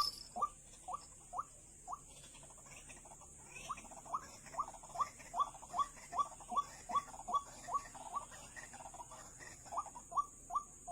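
White-breasted waterhen calling: a long run of short, downward-slurred notes, about two to three a second, with a brief lull a couple of seconds in. A steady high-pitched hiss runs behind it.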